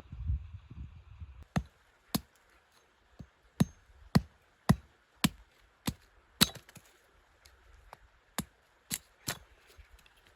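An axe chopping wood: about a dozen sharp blows, roughly two a second, in a run of nine and then three more near the end after a short pause.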